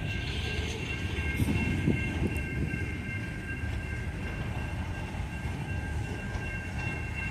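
Coal cars of a freight train rolling past with a steady rumble of wheels on rail, with a few faint, steady high-pitched tones above it.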